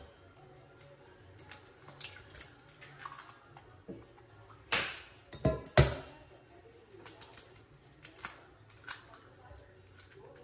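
Eggs cracked on the rim of a stainless steel mixing bowl: three sharp cracks a little past halfway, with lighter shell clicks and taps before and after.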